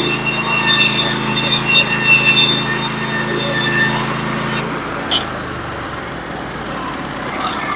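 Norwood HD36v2 portable bandsaw mill running under load, its engine steady and the band blade cutting through a log with a high hiss and whine. About four and a half seconds in the cutting stops and the engine drops to a quieter hum, with a sharp click soon after.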